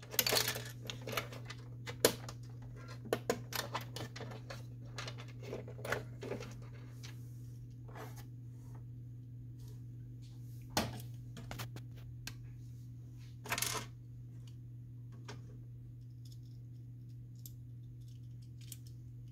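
Plastic clicks and rattles of a printer's document-feeder pick-up roller assembly and its springs being handled, many quick clicks in the first several seconds, then a few scattered ones, over a steady low hum.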